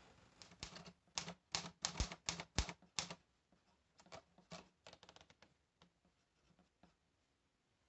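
Typewriter keys striking in a quick run as a line of capitals is typed, followed by fainter, scattered clicks.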